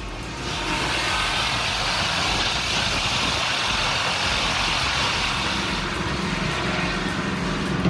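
Heavy machinery running steadily: a low engine rumble under a loud rushing hiss that comes in about half a second in and holds steady.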